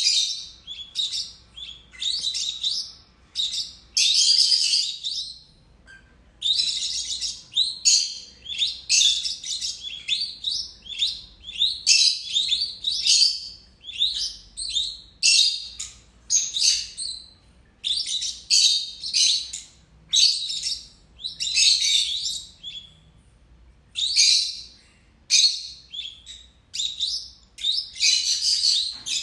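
A pair of lutino peach-faced lovebirds giving shrill, high-pitched chirping calls in quick runs of short notes, broken by brief pauses, throughout.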